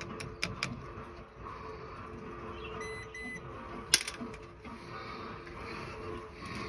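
Light clicks and taps of small hand-tool and metal-part handling at a well pressure switch: a few sharp clicks in the first second and a louder single click about four seconds in. Two short high beeps sound around three seconds in, over a steady low hum.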